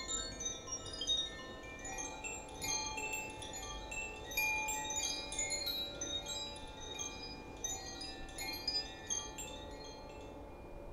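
Chimes ringing in a loose, random scatter of bright, high tones that overlap and ring on. They thin out and fade away near the end.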